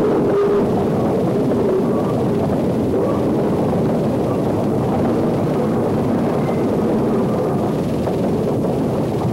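Train of iron-ore wagons rolling past close by: a steady, even rumble of wheels on the rails.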